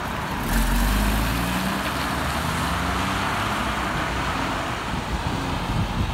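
Porsche sports car engines running as the cars pull away and drive past, with a heavy low rumble about half a second in, and the steady hiss of tyres on a wet road.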